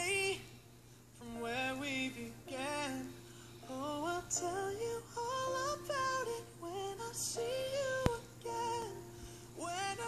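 Pop song playing: a high sung vocal in gliding phrases over soft backing music, with short pauses between lines. There is one sharp click about eight seconds in.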